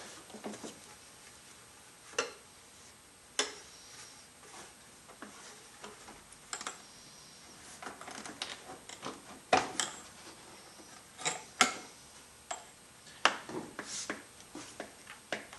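Hands working a rubber upper coolant hose back onto its fitting: irregular light clicks and taps, about a dozen of them scattered through, with a few faint squeaks.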